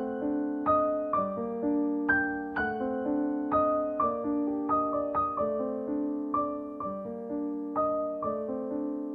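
Slow, gentle solo piano music, with notes struck about twice a second, each ringing on and fading.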